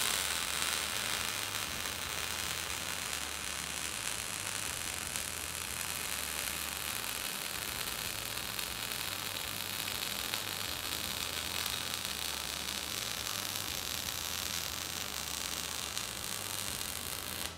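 MIG welding arc on a robot-held torch running a fillet weld on thick steel, with 1.2 mm solid wire and 80:20 mixed shielding gas at about 180–200 A and 18 V: a steady, noisy hiss throughout. The arc throws heavy spatter, which the reviewer takes as a sign of somewhat unstable current control in this ordinary domestic welder.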